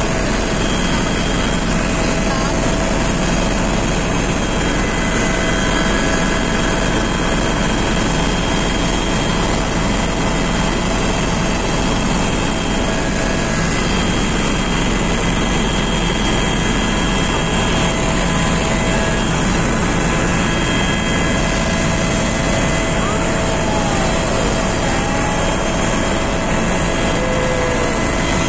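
Steady cabin noise of a helicopter in flight, heard from inside: an even engine and rotor drone with a faint steady whine on top.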